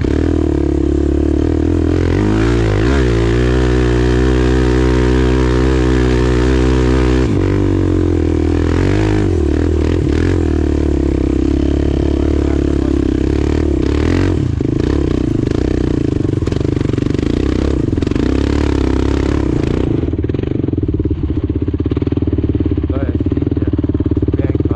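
Sport quad (ATV) engine running hard under throttle: held at steady high revs for a few seconds about two seconds in, then rising and falling as the rider works the throttle and gears.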